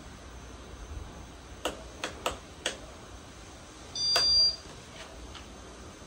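Four light clicks in quick succession, then a single short electronic beep about a second and a half later.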